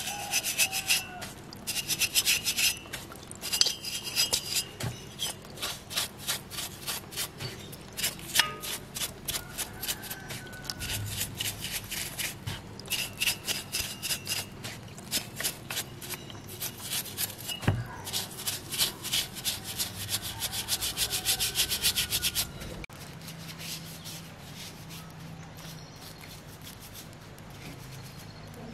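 Stiff bristle paint brush scrubbing the finned aluminium cylinder of a chainsaw in a basin of cleaning fluid: rapid scratchy back-and-forth strokes in bursts. The brushing stops about 23 seconds in, and the rest is quieter.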